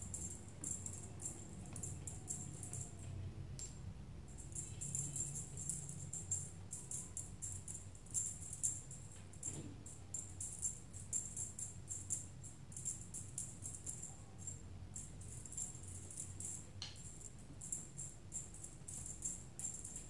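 Small jingle bell shaken in repeated bursts of jingling, over a steady low hum.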